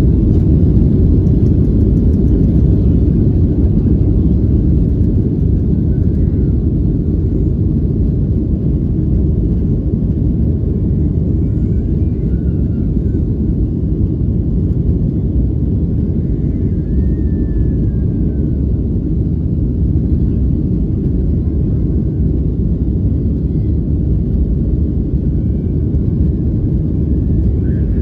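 Steady low rumble inside the cabin of a Boeing 737-700 taxiing: the CFM56-7B engines at taxi power and the rolling landing gear, with no rise toward takeoff thrust.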